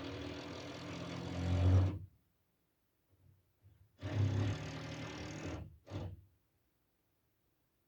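Power drill running on the other side of a wall in bursts: a run of about two seconds that grows louder just before it stops, then after a two-second pause a shorter run and a brief final burst.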